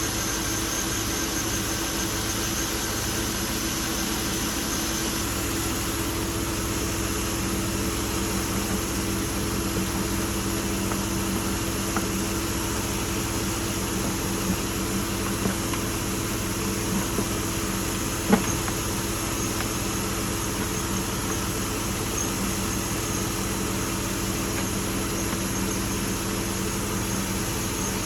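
Chevrolet Tahoe's LS V8 engine idling steadily, running on its freshly cleaned and rebuilt fuel injectors. One sharp click about two-thirds of the way through.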